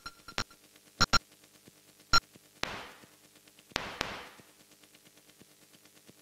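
Sparse glitchy electronic music: sharp digital clicks, two in quick succession about a second in, then two bursts of static-like noise that fade out over about half a second each, over a faint steady drone.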